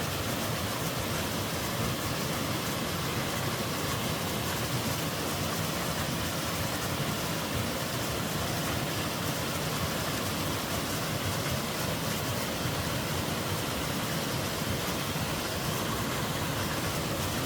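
Steady rush of a twin mountain waterfall pouring into a stream, a constant even roar of falling water.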